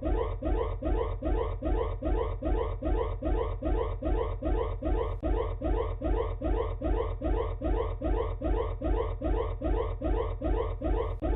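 Electronic alarm sounding in short rising sweeps that repeat about two and a half times a second, over a steady low hum.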